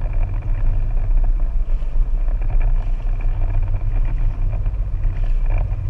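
A jet ski's engine running steadily, with a deep continuous rumble.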